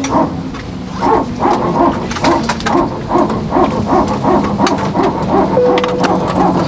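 A rapid run of short, pitched yelps, about three to four a second, over the steady hum of the parked Airbus A320's cabin.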